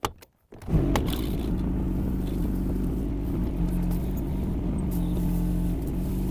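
Yanmar diesel engine of a Kymron XH20D mini excavator running steadily. It comes in abruptly about half a second in, after a brief click.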